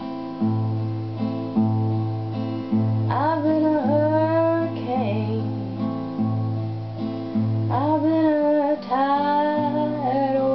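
Steel-string acoustic guitar fingerpicked in a steady, repeating pattern of bass notes under higher strings. A woman's voice sings over it about three seconds in, and again from about eight seconds on.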